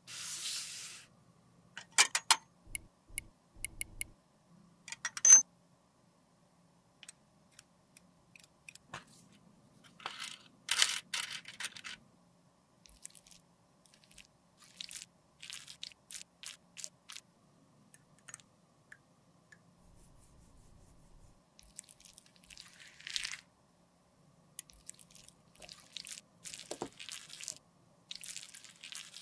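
Close-up handling sounds of a lipstick being worked on: sharp clicks in the first few seconds, then soft scraping and crunching as the red lipstick is scraped with a metal spatula into a glass beaker.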